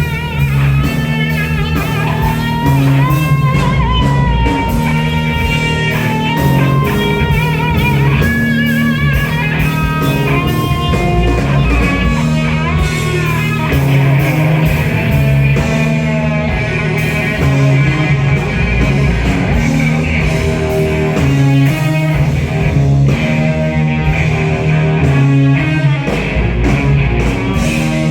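Live rock band playing: an electric guitar solos with wide, wavering vibrato and bent notes over a repeating bass line and a drum kit.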